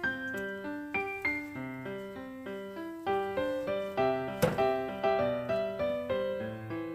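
Background piano music, a steady run of notes, with one sharp knock about four and a half seconds in.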